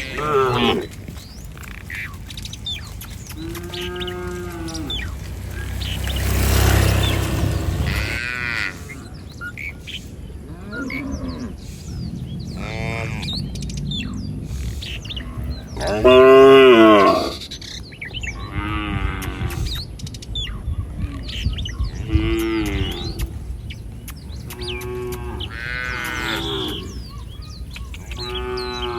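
Several cattle mooing repeatedly, about ten calls in all, some low and some higher-pitched. The loudest and longest moo comes about sixteen seconds in. A brief rush of noise rises and fades around the seventh second.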